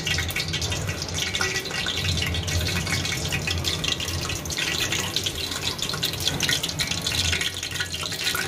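Cumin seeds sizzling and crackling in hot oil in a pressure cooker on a high flame: a dense steady crackle of fine ticks over a steady low hum.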